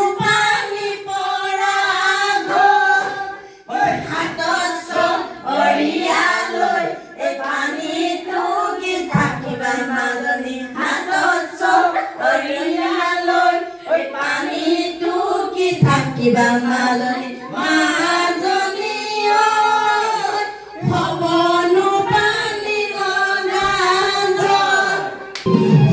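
Women singing a Bihu folk song in a group, one voice through a hand-held microphone, in phrases of about five seconds with short breaths between them.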